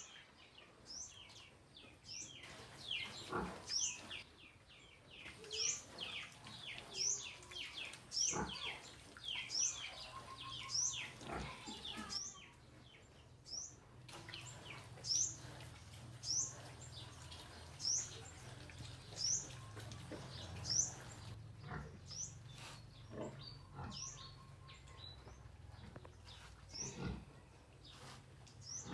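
Piglets eating banana, with wet chewing clicks and grunts. A bird chirps throughout, a short rising note about once a second.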